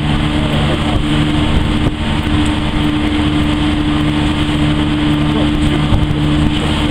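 MV Loch Alainn's diesel engines droning with a steady hum, over a constant loud rush of wind and sea.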